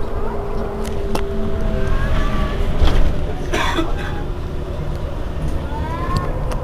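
Heuliez GX 327 city bus idling while stopped, a steady low rumble with a few constant tones. There is a short burst of noise about three and a half seconds in.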